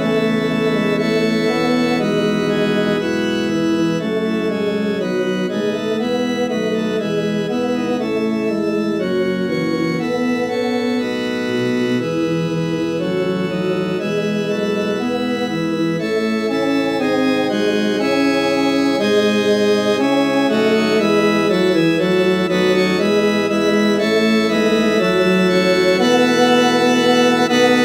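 Computer MIDI playback from NoteWorthy Composer of a choral Christmas carol arrangement: a rehearsal track for the bass part, in a synthesized organ-like sound. Sustained chords move from note to note at an even level.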